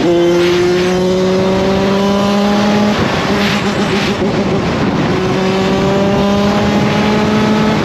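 Kawasaki KX100 two-stroke dirt bike engine pulling hard through the gears. Its pitch climbs in long rising sweeps, drops at a shift right at the start, falls off about three seconds in and climbs again from about five seconds in. Wind rush runs underneath.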